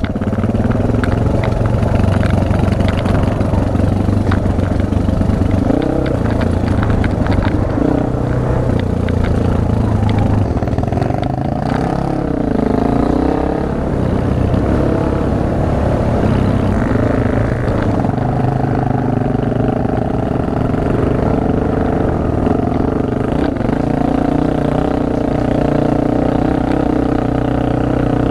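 Single-cylinder four-stroke Honda trail bike engine running under load on a steep rocky climb, revs rising and falling with the throttle, with a brief dip about halfway through. Stones and the bike's parts clatter over the rough ground.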